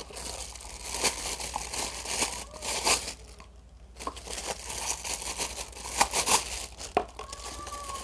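Plastic packaging crinkling and rustling as it is handled and unwrapped, in irregular crackles with a short pause about three seconds in.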